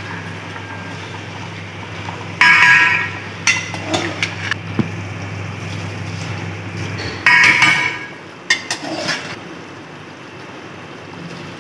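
Metal ladle clinking and scraping against the rim of a metal cooking pot while dry rice is tipped into boiling water, in two clusters of ringing clinks about two and a half and seven seconds in. Under them a steady low hum that fades out about seven seconds in.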